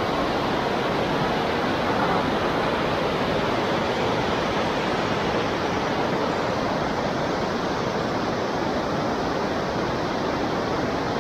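Fast, turbulent river rushing over rocks: a steady, even rush of water.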